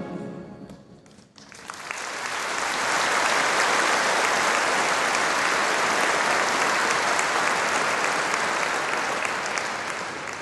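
The final chord of a massed military brass band dies away over about a second, then a large audience breaks into steady applause.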